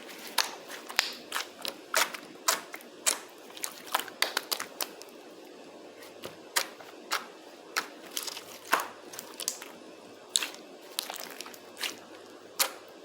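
Jiggly slime being squeezed and poked by hand, giving sharp, irregular pops and clicks, one to several a second, some in quick clusters.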